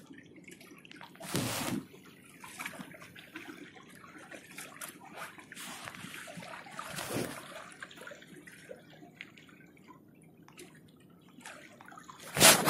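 Water sloshing and dripping in small irregular crackles, with a louder slosh about a second and a half in and a loud burst near the end.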